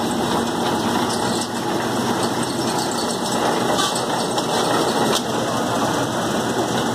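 6YL-120 screw oil press running steadily under load, its drive and press screw turning as it crushes rapeseed, with a few light clicks.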